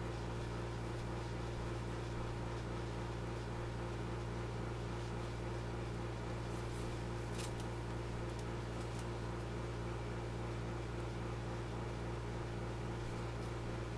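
A steady low mechanical hum, with a few faint light clicks about seven seconds in.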